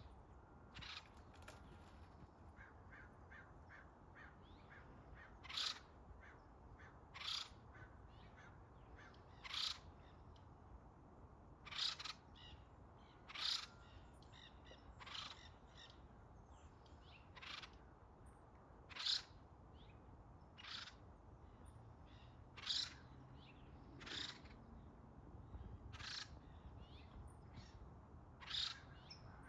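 Acorn woodpeckers calling: separate calls repeated every second or two, with a quick run of short notes about two seconds in.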